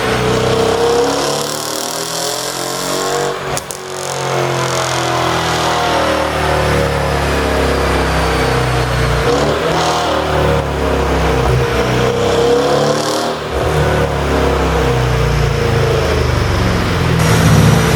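Mercedes-AMG CLS63's twin-turbo V8 being revved up and let fall several times, with sharp pops from the exhaust as the revs drop: the overrun pops of a pop-and-crackle tune.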